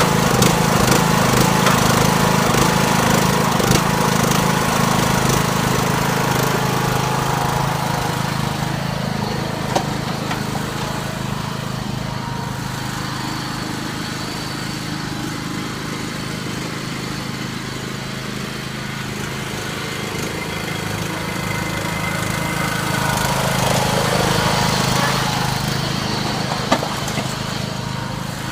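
Riding lawnmower engine running steadily under way. It is loudest at first, fades through the middle and swells again near the end, with a couple of brief clicks.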